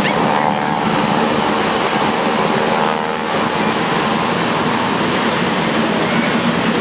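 Drone of T-6 Texan propeller aircraft engines overhead, heard through a loud steady rush of wind and surf noise; the engine tone fades about three seconds in.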